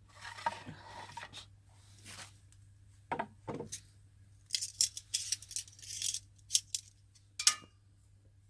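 Objects being handled close by: rustling, then a run of sharp clicks and light clinks, the loudest about seven and a half seconds in, over a faint steady hum.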